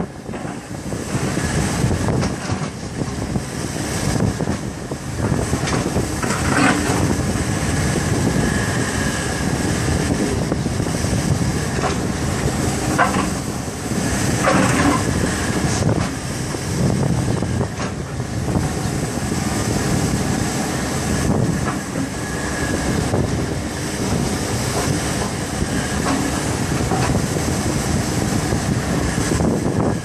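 Takeuchi TB290 excavator running steadily as it digs, its diesel engine and hydraulics making a continuous heavy mechanical din. A few sharp clanks come through, around a quarter and again halfway in.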